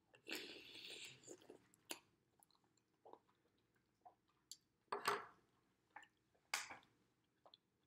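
Close-mic eating sounds of a person taking a butter-sauced green-lip mussel into the mouth. A wet slurp lasts about a second at first, then comes soft chewing with a few short, sharp lip smacks.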